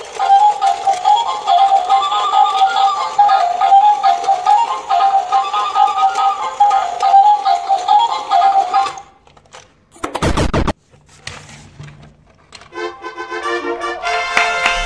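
Battery-operated light-up bird toy playing an electronic melody, which cuts off about nine seconds in. A short, loud burst of noise follows about a second later, and near the end another electronic tune starts.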